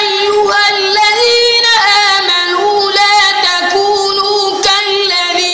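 A boy's voice reciting the Quran in a melodic chant (tajweed), drawing out long held notes that slide and turn slowly between pitches.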